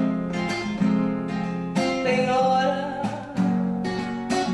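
Classical acoustic guitar strummed in a steady rhythm, about one strummed chord a second, with each chord ringing on until the next.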